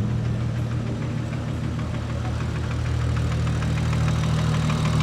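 Nissan Skyline R33's straight-six engine idling steadily, with a fast, light ticking over it: the strange noise from the valve cover that the owners mean to fix.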